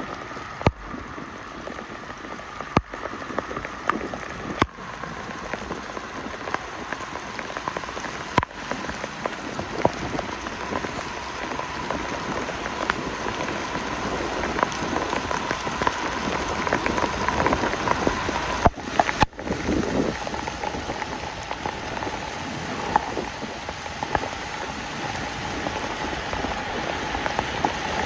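Steady rain falling, an even hiss, with a few sharp clicks scattered through it and a faint steady whine underneath.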